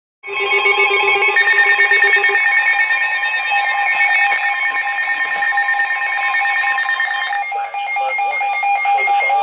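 Three Emergency Alert System signals for a flash flood warning playing on top of one another: steady alert tones and buzzy digital header bursts clash in one loud, dissonant blare. It starts abruptly, and the texture changes about seven and a half seconds in.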